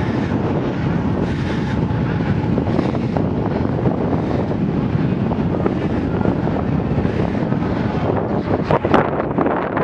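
Wind buffeting the microphone of a camera riding on a moving velomobile: a steady, loud, low rushing rumble, with a few sharp knocks near the end.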